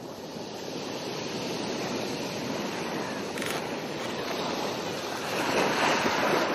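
Sea waves washing on a shore: a steady rushing that swells to its loudest near the end, like a wave breaking.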